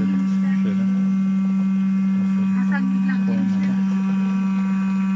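Electric cream separator running with a steady hum while it separates milk into cream and skim milk.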